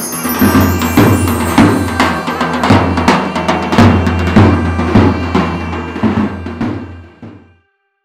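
Intro music: a steady drum beat, about two strokes a second, over a held bass note, fading out near the end.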